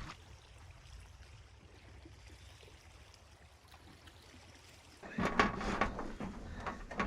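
Faint steady outdoor hiss and low rumble, then about five seconds in a run of knocks, clicks and clatter, like gear being handled and set down.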